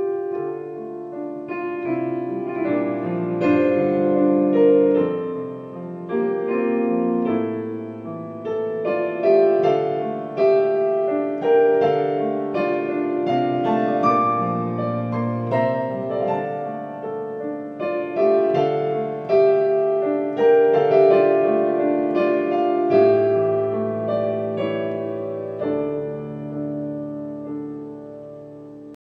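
Background piano music: slow, sustained chords under a melody, growing quieter near the end.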